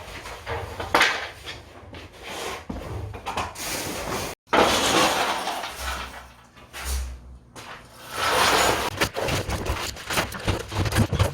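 Irregular knocks, clatter and scraping noise, with an abrupt cut to silence about four seconds in before the noise resumes.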